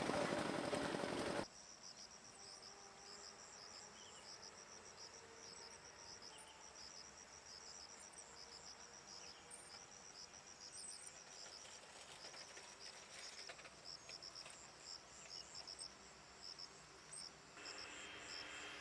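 Crickets or similar insects chirping faintly in short, high, repeated pulses. Before them, a loud noise cuts off suddenly about a second and a half in.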